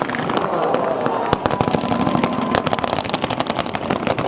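Consumer-grade (1.4G) fireworks firing in a dense barrage: many rapid, overlapping shots and crackles a second, without a break.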